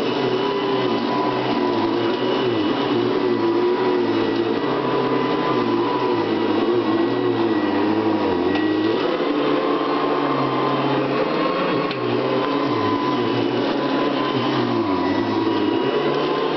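Hoover Convertible upright vacuum cleaner running steadily, its motor pitch wavering slightly up and down.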